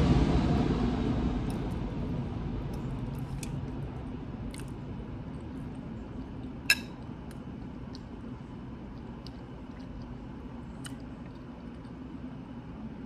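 Someone eating animal-style fries: quiet chewing with scattered small mouth and utensil clicks and one sharp click about seven seconds in. A loud low rumble fades away over the first two seconds.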